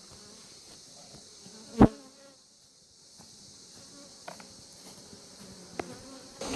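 Honeybees buzzing faintly around an open hive, with one sharp knock about two seconds in and two lighter taps later.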